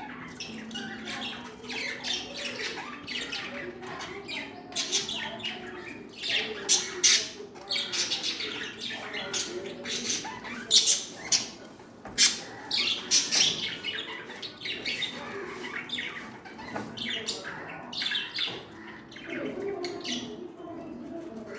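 Budgerigars chattering and squawking: a continuous run of short, quick calls, with louder sharp squawks through the middle stretch.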